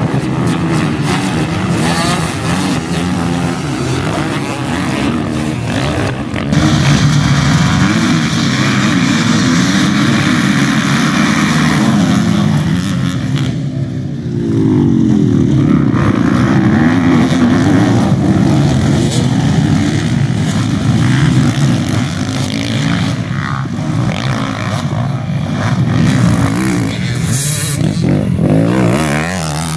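Several motocross dirt bikes racing, their engines revving up and down in repeated rising and falling whines as riders work the throttle through corners and jumps. The mix of engines changes abruptly a few times at the cuts.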